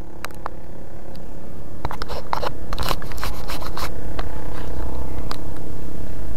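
Wind rumbling on the microphone of a riding cyclist, growing louder over the first few seconds as the bicycle picks up speed. A scatter of sharp clicks and rattles comes in the first five seconds.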